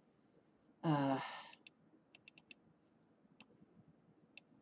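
A short voiced sigh about a second in, then a string of sharp, irregular computer mouse clicks.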